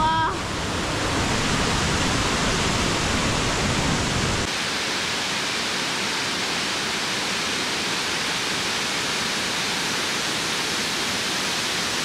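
Steady rushing of waterfalls, a dense even hiss of falling water. About four and a half seconds in, the deep rumble under it drops away and a thinner rush carries on.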